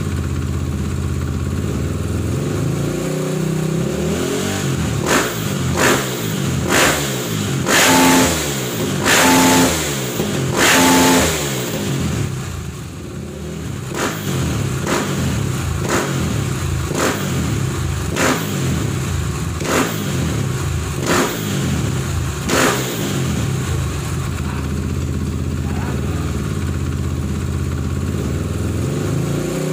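KTM 450 EXC single-cylinder four-stroke dirt bike engine with an FMF aftermarket exhaust, idling and then revved by hand with the throttle. A few short blips are followed by three longer held revs, then a string of quick blips, before it settles back to a steady idle for the last few seconds.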